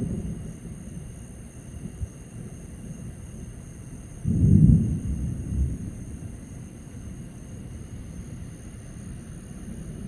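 Low rumble of distant thunder, swelling louder for a couple of seconds about four seconds in, then settling back to a low background rumble.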